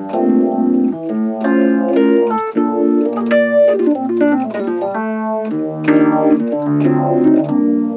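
Rhodes-style electric piano sound from the EVP88 virtual electric piano, playing a sequence of sustained chords that change about every second.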